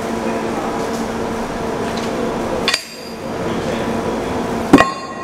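Heavy steel track hardware being handled on subway track: two sharp metal clanks, one a little past halfway and a louder one near the end, over a steady hum.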